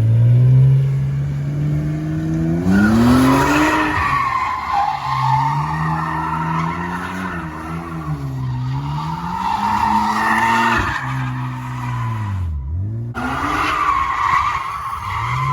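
A car's engine revving up and down while its tyres squeal and skid in three long stretches.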